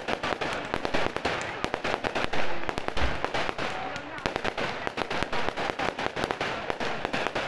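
Aerial fireworks in a continuous barrage: shells bursting and crackling in quick succession, several sharp reports a second.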